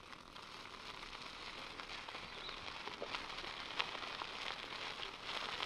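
Bicycle rolling over a dirt track, its tyres crackling on grit with many small clicks, growing steadily louder as it approaches.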